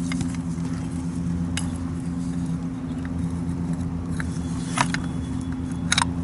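A few light metallic clicks and taps as the float bowl is fitted onto the Yamaha V-Star 1100's carburetor body, about 1.5, 5 and 6 seconds in, over a steady low hum.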